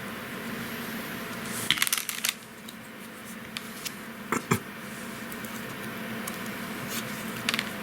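Small handling noises of a plastic model kit being assembled: a quick run of clicks and scratchy rustles about two seconds in, two sharp clicks about halfway, and a brief rustle near the end, over a steady low hum.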